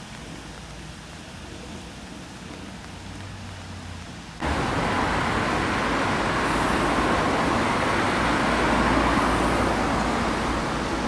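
Faint, steady outdoor noise with a low hum, then an abrupt jump to much louder city street traffic about four seconds in: cars driving past on a street where a trolleybus is approaching.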